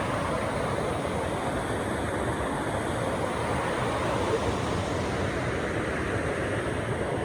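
Steady rush of river water tumbling over the rocks of a cascade.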